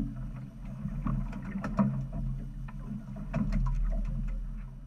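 A boat's engine running steadily at idle, with scattered clicks and knocks from fishing reels, rods and handling on the deck.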